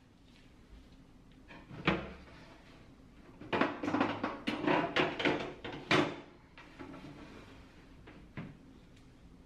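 A refrigerator's pull-out freezer drawer is handled: a knock as it is pulled open, then about two and a half seconds of clattering as a pie pan is set in and the frozen contents are shuffled, ending with a sharp knock, followed by a few quieter knocks.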